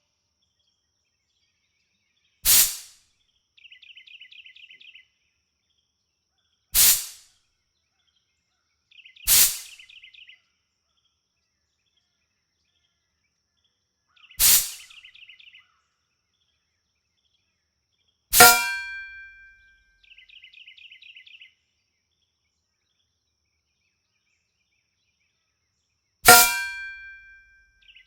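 Umarex .44 CO2 air pistol fired six times, sharp cracks a few seconds apart. The fifth and sixth shots are each followed by a ringing metallic clang that dies away over about a second, a BB striking a metal target.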